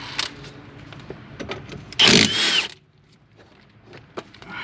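A short burst from a power tool loosening a 15 mm brake caliper bolt, about two seconds in, with small clicks and knocks of tool and metal parts being handled around it.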